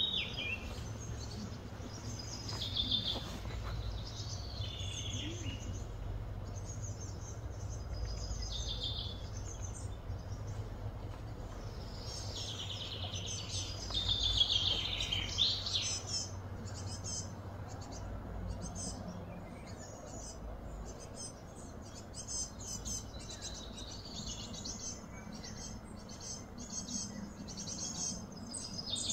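Wild birds chirping and calling throughout, with short repeated notes and some gliding calls that are loudest about halfway through, over a low steady hum.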